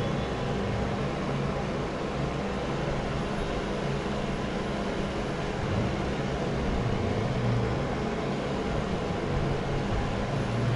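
Mondial A-08 electric fan heater running, its fan blowing a steady rush of air with a low hum underneath.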